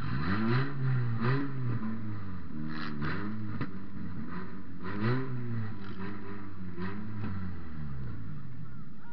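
Toyota Matrix derby car's engine revving in a string of quick blips, the pitch rising and falling about once a second, then dropping back toward idle near the end.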